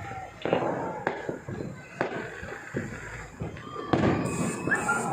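Fireworks going off: separate sharp bangs about a second apart, then a denser crackling with short whistles near the end.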